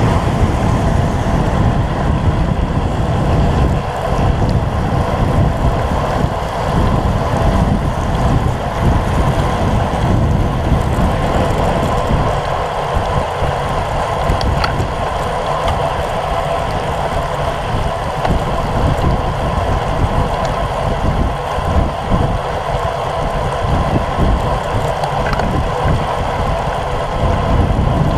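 Steady wind buffeting the microphone of a bike-mounted camera at road-cycling speed, about 33 km/h, with the hiss of bicycle tyres on a wet road.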